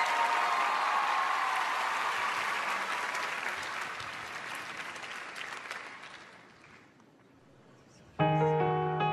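Audience applause dying away over about seven seconds into a brief hush. Near the end, piano chords start as the backing track begins.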